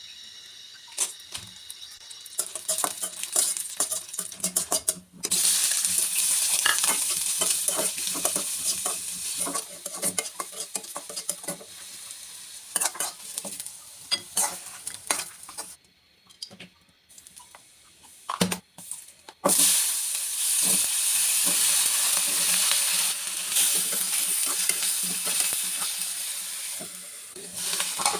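Food sizzling in hot oil in a pan while a spatula stirs and scrapes, with many short clicks of metal on the pan over a steady hiss. The sizzling drops away for a few seconds past the middle, then comes back loud and sudden, as when food is put back on the heat or new ingredients go into the oil.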